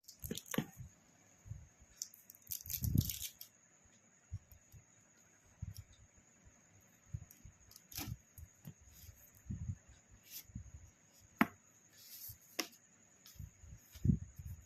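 Close handling noise: scattered clicks, taps and soft low thumps, the loudest cluster about three seconds in, over a faint steady high-pitched whine.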